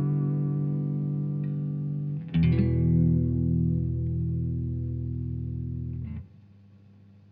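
Fender Custom Shop electric guitar through a Bogner Atma amp, with chorus and mild overdrive: a held chord rings out, a new chord is struck about two seconds in and left to ring, then is muted about six seconds in, leaving only the amp's hum and hiss.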